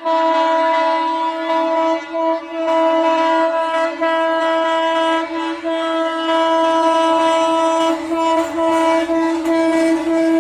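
Indian Railways electric locomotive's horn held in one long, steady blast with only brief breaks, as the train approaches. The rumble of the train grows under it near the end.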